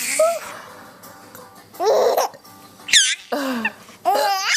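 A four-month-old baby laughing in a few short, high squealing bursts, the last near the end, set off by an adult's hiccup-burps. A lower throaty burst comes about two seconds in.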